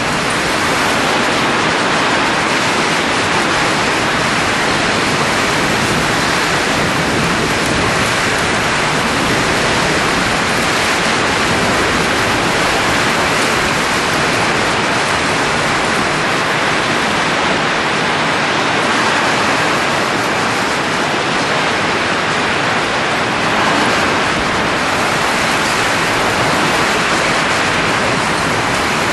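Steady rushing of blown air, an even hiss that stays level without breaks or changes.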